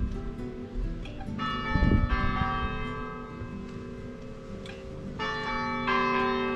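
Bells ringing: several strikes, each setting in sharply and ringing on with a cluster of tones.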